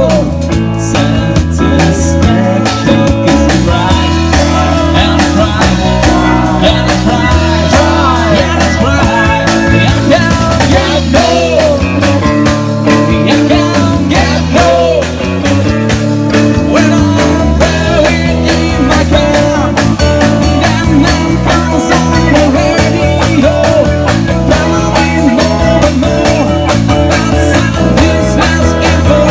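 Rock band playing a song: guitar and bass over a steady drum beat, with a singer.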